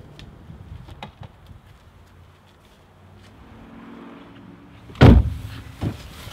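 Volkswagen Jetta wagon's doors slammed shut: a heavy thump about five seconds in and a lighter one just under a second later.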